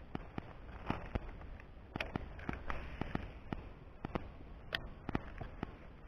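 Fishing rod and reel being worked during a lure retrieve: irregular light clicks and knocks, about two or three a second, over a steady low rumble.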